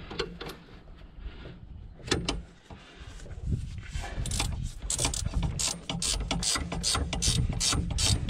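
A 13 mm ratchet wrench being worked back and forth to loosen a bolt, its pawl clicking. There are a few isolated clicks at first, then a fast, steady run of clicks from about halfway through.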